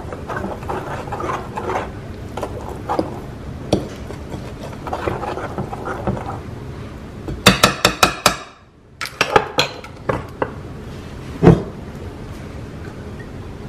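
Batter being stirred by hand in a ceramic bowl, the utensil scraping and clinking against the bowl. About halfway through comes a quick run of sharp taps, then a few more clinks and one louder knock near the end.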